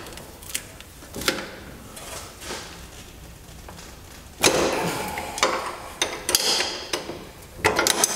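Metal clinks and rattles of a wrench working a 14 mm bolt loose on a lawn tractor's steering assembly: a few scattered clicks, then a louder rattling, scraping stretch about four seconds in, and more clicks near the end.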